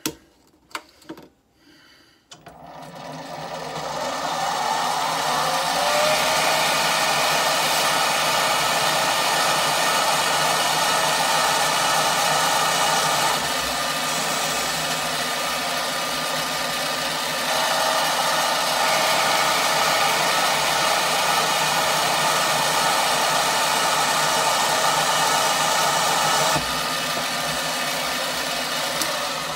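A mini metal lathe switched on with a couple of clicks, its motor whine rising as it spins up, then running steadily while turning an ebonite rod down to diameter. It winds down near the end.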